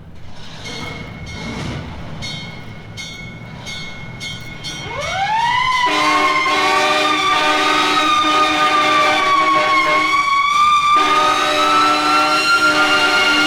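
Fire engine bell clanging in uneven strokes. About five seconds in, a mechanical siren winds up to a high wail that holds with a slight waver. A lower steady horn-like tone sounds under the siren and breaks off briefly near the ten-second mark.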